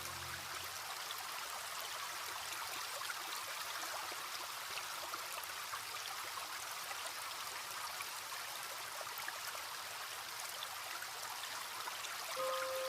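Small stream trickling and babbling steadily. A music box-like melody comes back in near the end.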